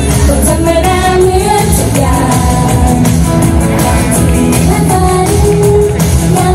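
Thai idol-pop song sung by a female group over a steady beat and bass.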